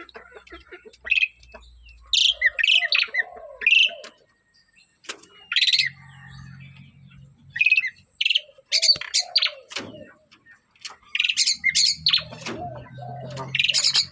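Javan myna (jalak kebo) calling in lively voice: quick clusters of short, harsh and whistled notes, broken by pauses of a second or two, with some lower arched notes mixed in.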